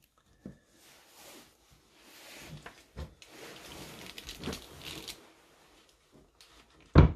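Handling noise as the heavy spindle and Z-axis carriage assembly is lifted and moved by hand: rustling and a few light knocks, then one loud thump near the end.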